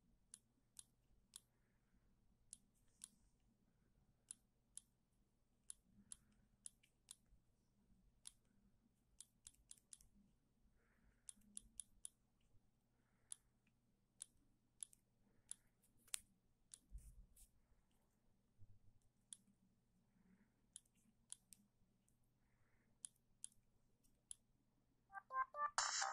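Faint, sharp key clicks of a Siemens CF62 mobile phone's keypad being pressed, irregular, about one or two a second. About a second before the end a ringtone starts playing loudly from the phone's speaker.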